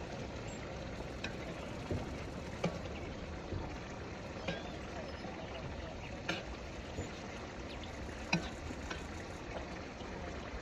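Rice and broth of pilaf simmering in a large kazan: a steady bubbling and sizzling hiss, with short sharp clicks every second or two.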